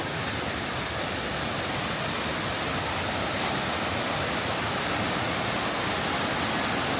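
Tumpak Sewu waterfall's falling water rushing in a steady, even wash.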